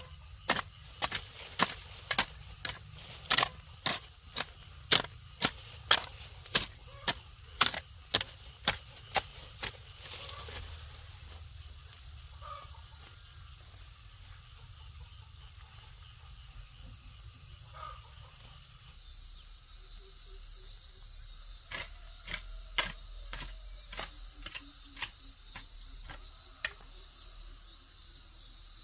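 Sharp, rhythmic chopping strikes of a hand tool, about two a second, stopping about ten seconds in and resuming more faintly near the end.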